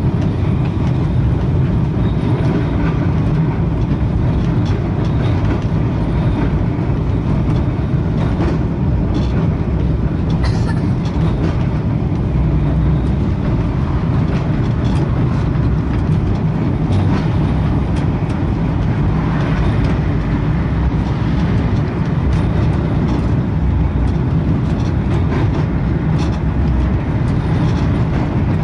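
Blackpool's Western Train heritage illuminated tram (733) running along the promenade tramway, heard from on board its rear saloon car: a steady low rumble of the moving tram with a few faint ticks.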